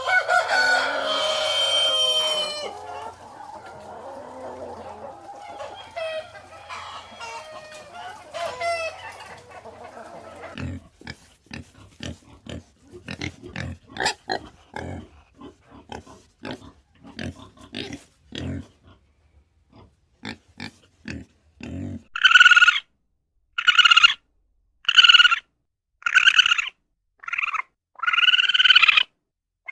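A sequence of farm-animal sounds: mixed calls, then a run of short, sharp calls, and in the last several seconds a cat meowing about once a second, seven times.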